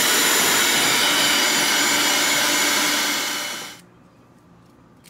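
Electric hand mixer running at a steady speed, its beaters whirring through chocolate cake batter in a stainless steel bowl; the sound stops abruptly a little under four seconds in.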